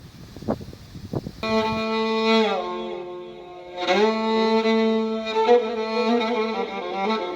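Wind buffeting the microphone, then about a second and a half in, slow bowed-string music begins, long held notes sliding from one pitch to the next.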